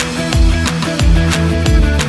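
Background music with a steady beat: a rock-style track with guitar and heavy drums.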